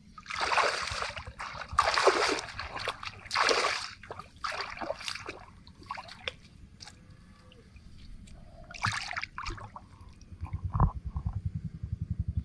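Water splashing hard three times in quick succession, then smaller splashes and sloshing, as hands work through shallow muddy water. A fast, low pulsing rumble comes in near the end.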